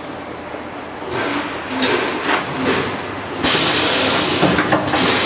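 Vertical form-fill-seal packing machine running through a bag-making cycle, with a low hum, then swishes and clicks as the film is pulled and the sealing jaws work. About three and a half seconds in comes a loud hiss with clicks over it.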